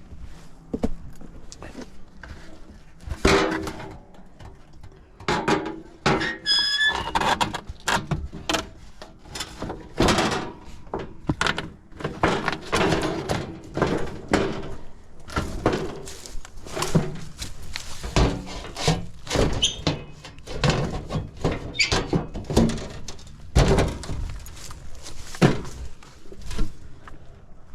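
Heat pump equipment being reassembled by hand: an irregular run of thunks, knocks and clatter, with a short squeak about seven seconds in.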